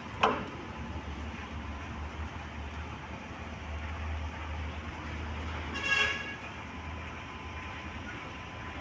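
A heavy engine runs steadily with a low hum. There is a single sharp knock just after the start, and a short horn toot about six seconds in.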